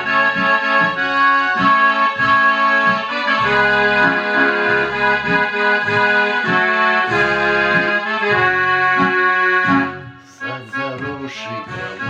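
Instrumental song introduction: a sustained reedy melody and chords over a bass line, dropping briefly about ten seconds in before short struck notes pick up.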